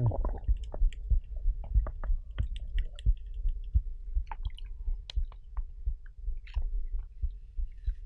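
Sea water sloshing and lapping around a waterproof camera held at and just below the surface: a muffled low rumble with many irregular soft knocks and clicks.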